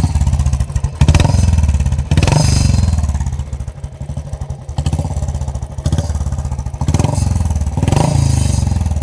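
Royal Enfield Bullet 350's single-cylinder engine, fitted with a short bottle silencer, revved in several throttle blips that rise and drop back to its pulsing idle.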